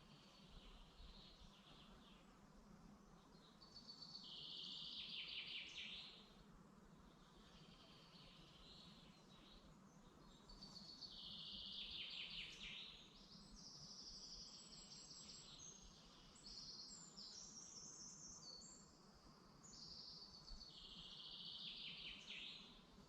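Songbirds singing in woodland: faint, rapid trilled phrases high in pitch, one every few seconds, with thin higher notes in between.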